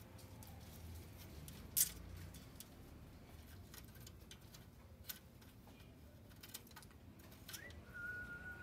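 Scattered sharp clicks and cracks of a parrot's beak picking at wood and litter on the cage floor, the loudest about two seconds in. Near the end a rising whistle, then a held whistled note.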